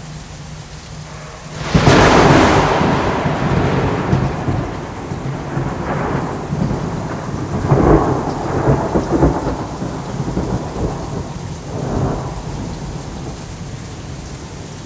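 Thunderclap in a rainstorm: a sudden loud crack about two seconds in, then rolling rumbles that swell up again a few times and fade, over steady falling rain.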